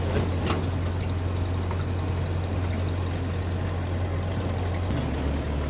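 Car engine running steadily with a low drone. The drone shifts to a slightly lower pitch about five seconds in.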